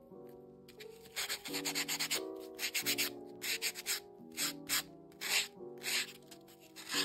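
Yellow foam nail buffer block rubbed against a natural fingernail in short scratchy strokes, a quick run of them about a second in and then single strokes every half second or so, smoothing the nail surface. Soft lo-fi piano music plays underneath.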